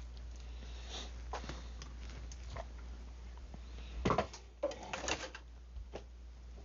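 A 10-32 hand tap being turned by hand into soft metal: scattered light clicks and scrapes of the tap and wrench, with a louder cluster about four to five seconds in, over a steady low hum.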